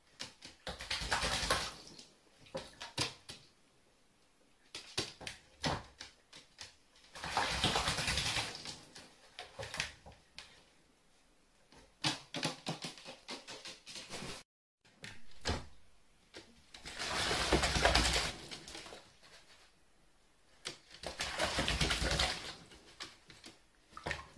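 Carrion crow bathing in a small plastic basin, splashing water and flapping its wings in repeated bouts of a second or two each, with short quiet pauses between.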